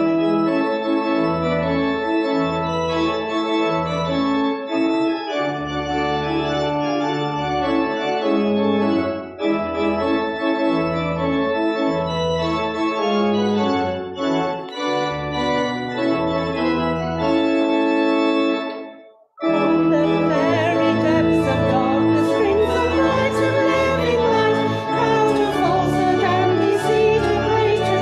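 Church organ playing a hymn tune through as an introduction, with a short break about nineteen seconds in. The organ then starts again and the congregation sings along with it.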